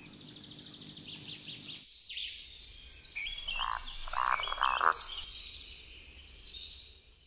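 Frogs croaking and birds singing. A fast high trill runs for about the first two seconds; after an abrupt change, birds chirp, and a bout of croaking comes in the middle.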